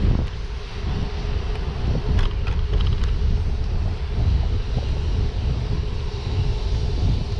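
Wind buffeting the microphone and a low rumble from riding along a paved path on a small vehicle, with a faint steady hum throughout and a few light clicks about two seconds in.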